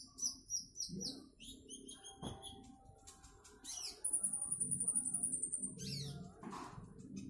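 Kolibri ninja (plain-throated sunbird) singing in a rapid, chattering 'trotol' style: quick runs of high chirps, sharp downward-swept notes, and a long steady high whistle held for nearly two seconds about four seconds in.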